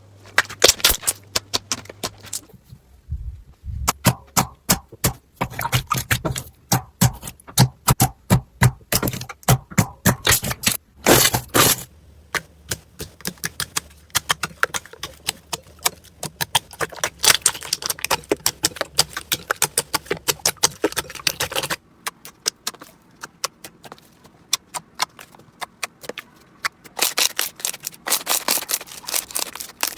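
Slime being squeezed and poked by hand, giving rapid runs of crackling pops and clicks, with the texture changing abruptly a few times as one slime gives way to another.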